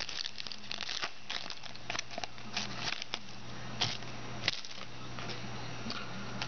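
Trading cards being handled: dense rustling, crinkling and small clicks as cards slide and flip, thinning out after about three and a half seconds, over a steady low electrical hum.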